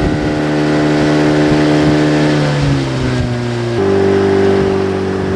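Small fishing boat's engine running under way. Its pitch sags about two and a half seconds in, and the note changes abruptly to a lower, steadier one about four seconds in.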